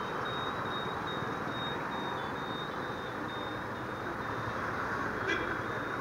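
Steady motorcycle and road-traffic noise from a Yamaha R15 V3 at a junction, with a short high-pitched beep repeating about twice a second over it.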